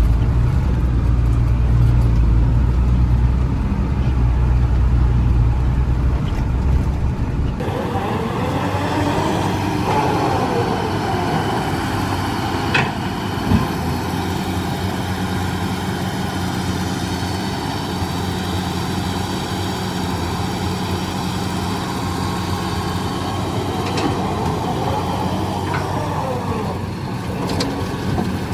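Heavy diesel machinery running steadily, with a deep engine hum that changes abruptly about seven seconds in to a higher, busier engine sound.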